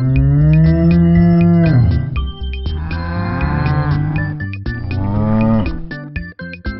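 Cow mooing three times: two long moos and a shorter third one, over light background music.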